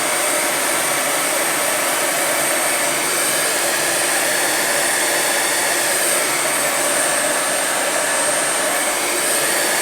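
Electric heat gun running steadily, a constant rush of blown air with a faint high whine, as it shrinks heat-shrink tubing over a crimped wire splice.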